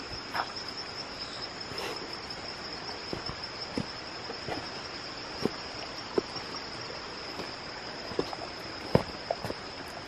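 Insects keeping up a steady, high-pitched cricket-like drone on one pitch, with a few short light knocks of footsteps on the rocky trail scattered through it.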